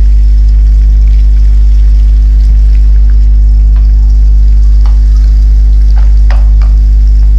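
Chopped onions sizzling in hot oil in a non-stick kadhai, stirred with a wooden spatula that scrapes and taps the pan a few times in the second half. A loud, steady low hum runs underneath.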